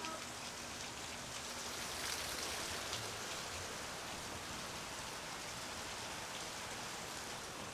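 Heavy rain falling in a downpour, a steady even hiss.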